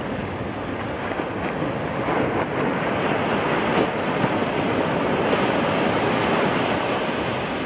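Arabian Sea surf breaking and washing up the beach. A steady wash of water swells louder about two seconds in, stays at its loudest through the middle, and eases off near the end.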